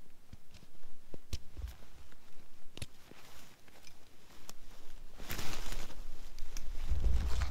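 Evergreen boughs and clothing rustling, with scattered small snaps and crunches, as a person crawls into a branch shelter on snow. The rustle grows longer and louder about five seconds in, with low thumps near the end.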